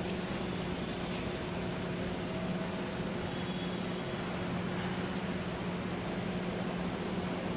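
Steady machinery hum and hiss of a car assembly plant, with a constant low drone and a faint high whine throughout.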